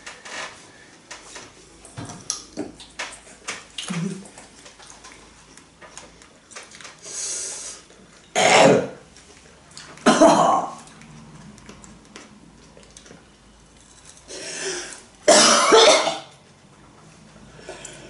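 People coughing and clearing their throats from the burn of raw hot chili peppers: a few harsh coughs, the loudest about eight and a half, ten and fifteen seconds in, with small quiet clicks between them.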